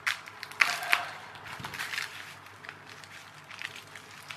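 Small plastic zip-lock bags crinkling as they are handled, a few sharp crackles in the first second, then fainter scattered rustles.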